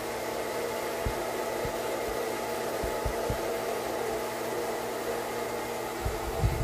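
Hand-held hair dryer running steadily: a constant rush of air with a faint motor whine. A few dull low knocks come through, with a cluster of them near the end.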